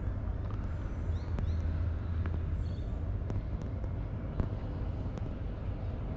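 Steady low outdoor background rumble, with a few faint light clicks and faint high chirps.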